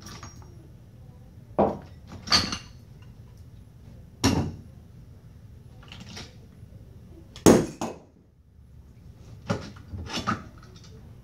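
Scattered metallic clinks and clanks, about eight in all, of a steel tool ring and snap ring knocking against a ZF 8HP aluminum clutch drum as the snap ring is pried out. The loudest clank comes about two-thirds of the way through.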